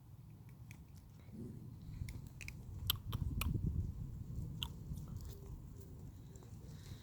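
A puppy grinding her teeth: scattered sharp clicks and scrapes over a low rubbing noise, loudest just past the middle.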